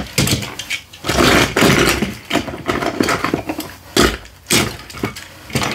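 Hand rummaging through a cardboard box of toys: plastic sheeting and packaging crinkle and rustle in irregular bursts, with a few sharp clicks and knocks.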